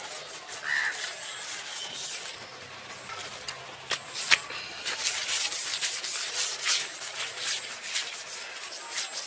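A leaf scrubbed in quick, scratchy strokes along the skin of a whole boal (wallago) catfish lying on a banana leaf, rubbing off the dark marks on its skin. The rubbing thins out for a couple of seconds, with one sharp tap about four seconds in, then goes on in dense, quick strokes.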